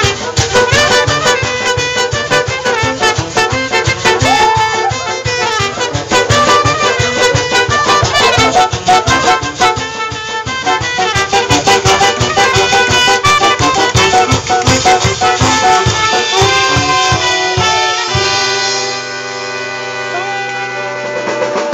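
Live street brass band of saxophones, trumpets and trombone over a drum kit playing a fast dance tune with a steady, even beat. About 18 seconds in the drums stop and the band holds a long final chord.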